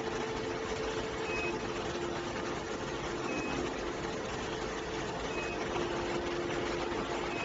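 Factory floor machinery noise: a steady rush with a low hum, and a short high beep repeating about every two seconds.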